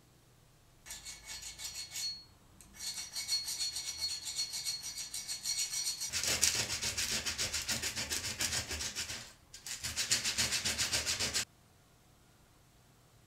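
Steel axe blade rubbed back and forth on a sharpening stone in quick, even strokes, in three spells with short pauses, with a thin high ring over the strokes in the first half; the strokes stop abruptly near the end.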